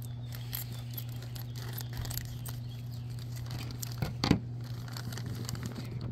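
Thin plastic toy bag crinkling as it is handled and cut open with scissors, with one louder sharp snap about four seconds in. A steady low hum runs underneath.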